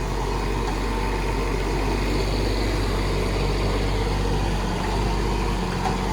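Kubota K008-3 mini excavator's small three-cylinder diesel running steadily with a low hum while the machine travels on its tracks.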